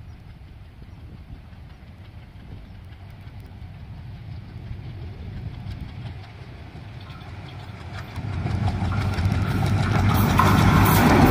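ALCo WDM-3A diesel-electric locomotive with a 16-cylinder ALCo 251 engine approaching under power. Its engine throbs low and grows steadily louder, sharply so about eight seconds in. Near the end the clatter of the train on the rails rises with it.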